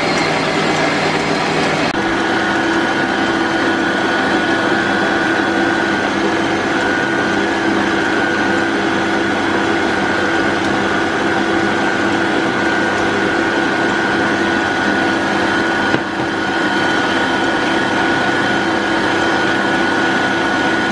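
Electric stand mixer running at a steady speed, its wire whisk beating eggs in a stainless steel bowl. A steady whine, with a short dip about sixteen seconds in.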